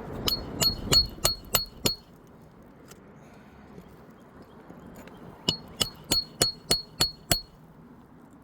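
Hammer driving roofing nails into a replacement asphalt shingle: two quick runs of about six or seven ringing metallic blows each, roughly three a second.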